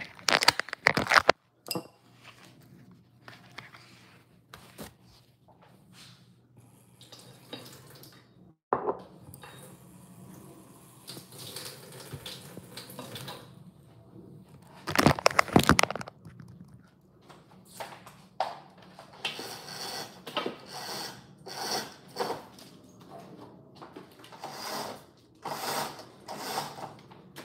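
Handling noise from a phone being moved about and set down, with a few sharp knocks and clatters and, near the end, a run of short rustles and taps, over a faint steady low hum.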